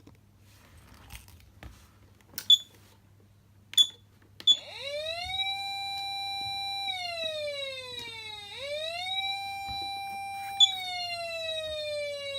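Electronic siren from a Patlite SAP500BZ siren amplifier, after three sharp clicks. The tone sweeps up and holds a steady pitch for about two seconds, glides down, and sweeps up again to hold. After another click near the end it begins a slow downward glide.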